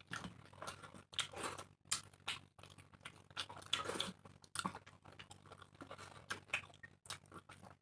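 Close-up chewing and mouth noises of people eating puri with egg curry: irregular wet smacks, bites and small clicks.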